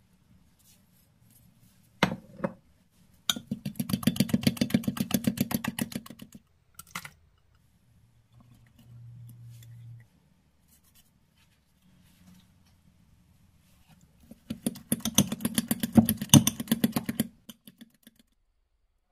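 A utensil beating an egg and flour batter in a ceramic bowl, with rapid clicking strokes against the bowl in two spells of about three seconds each. A single sharp clink comes just before the first spell.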